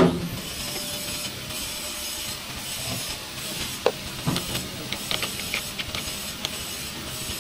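A spanner tightening a brass battery terminal clamp onto a battery post: a sharp knock at the start, then scattered short metallic clicks and taps over a steady hiss.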